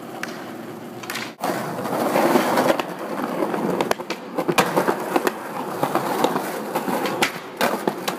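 Skateboard wheels rolling on concrete pavement, with several sharp clacks of the board striking the ground.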